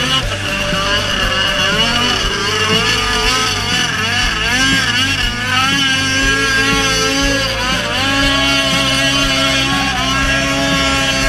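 Polaris snowmobile engine running hard as the sled skims across open water, its pitch wavering up and down as the revs rise and fall, with a brief dip in revs at the start.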